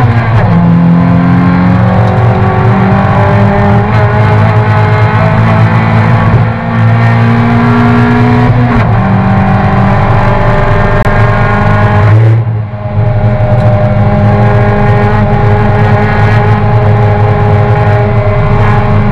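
A Toyota race car's engine heard from inside the cockpit, running loud under load, with its pitch stepping at gear changes a few times. About twelve seconds in, the sound drops briefly as the driver lifts off the throttle, then comes back on power.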